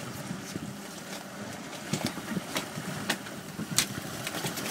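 Outboard motor idling steadily under the hiss of wind and water, with a few sharp knocks and slaps as a sailfish is wrestled onto the fiberglass deck.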